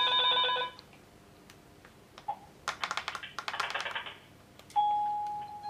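A FERMAX DUOX video intercom monitor's ring tone stops under a second in. A quick run of button clicks follows as the monitor is operated, and a steady beep starts near the end.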